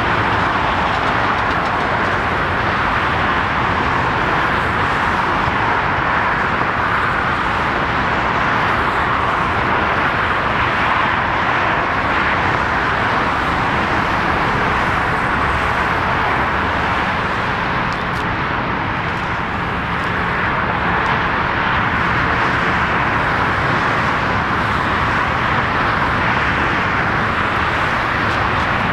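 Steady airport apron noise: an even, continuous roar of engines and ground traffic with no distinct events, easing slightly about two-thirds of the way through.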